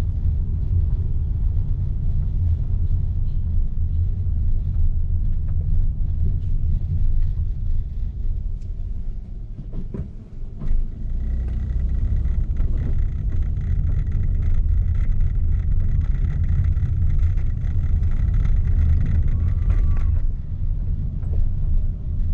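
Steady low rumble of a car's engine and tyres heard from inside the cabin while driving slowly, easing off briefly about ten seconds in.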